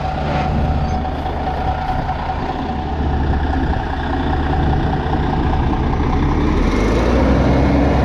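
Diesel engine of a cabover semi-truck tractor idling steadily close by, with a steady whine over the low engine hum. Near the end the low hum grows louder and a second steady tone joins it.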